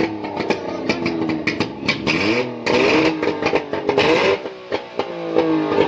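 Engine running out of its car and being revved up and back down twice, with a fast clatter of clicks throughout; it is being run to check for connecting-rod knock.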